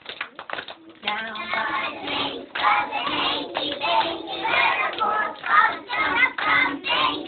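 A few hand claps, then a group of young children singing a song together from about a second in.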